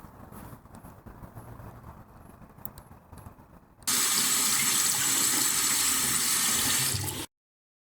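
Jetboil camping stove's gas burner running: a loud, steady hiss that starts suddenly about four seconds in and cuts off abruptly about three seconds later. Before it there is only faint low noise.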